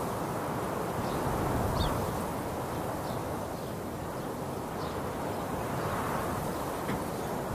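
Outdoor ambience: a steady rushing noise with a few faint, short bird calls scattered through it.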